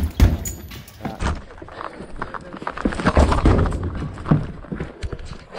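Two heavy thuds at a house door being forced open, then a rapid run of footsteps and clattering gear as people rush inside.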